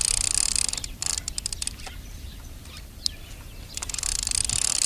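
Baitcasting reel being cranked to wind line back onto the spool: a high whirring that stops about a second in, a quick run of clicks, then whirring again near the end.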